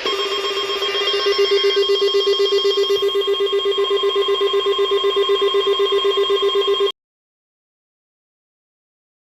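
An electronic alert tone pulsing rapidly, about eight times a second, with steady higher tones above it. It lasts about seven seconds, then cuts off abruptly.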